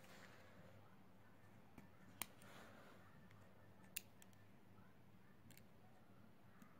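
Faint, sharp clicks of small repair tools against smartphone parts during a display replacement, two clearer ones about two and four seconds in, over a low steady hum.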